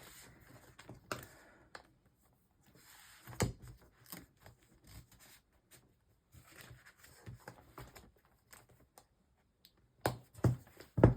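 Rustling and handling of a leather personal organizer and its pages, with scattered soft clicks and a few sharp knocks about ten seconds in.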